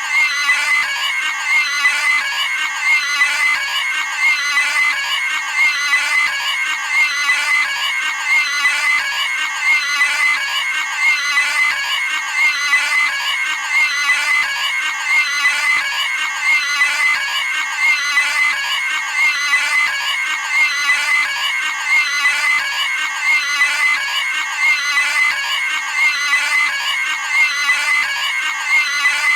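Cartoon pig screaming: a short high-pitched squeal clip looped over and over without a pause.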